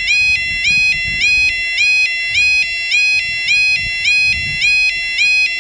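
UK railway level crossing audible warning alarm (yodalarm) sounding: a two-tone electronic warble whose pitch steps up and back about twice a second, warning that the barriers are lowering or down for a train.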